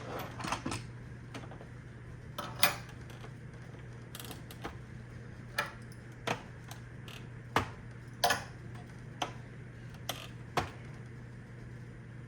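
Irregular small clicks and taps of the plastic parts of a Roomba 690 robot vacuum being handled while it is taken apart, about a dozen spread unevenly, over a faint steady low hum.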